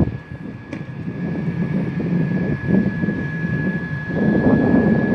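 TEP70BS diesel-electric locomotive's engine running with a steady low rumble and a thin high whine, getting louder about four seconds in as the train departs. A sharp knock right at the start.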